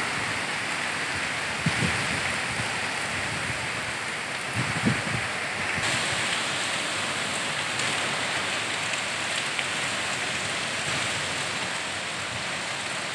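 Cyclone rain pouring steadily, with wind. A couple of brief gusts bump the microphone about two and five seconds in.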